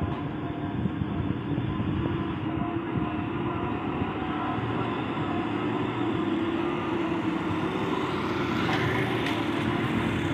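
Diesel engines of Hino FM1J trucks hauling cement loads, running as a steady deep drone that grows slightly louder as the trucks come closer.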